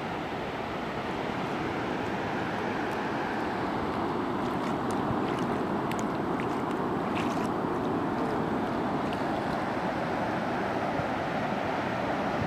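Steady wash of sea surf breaking on a shallow sandy beach. A few faint splashes come around the middle, from wading in the shallow water.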